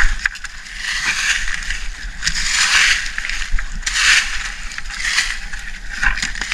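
A long-handled hoe chopping and scraping into soil and dry leaf litter: a series of rough, crunching strokes, about one a second.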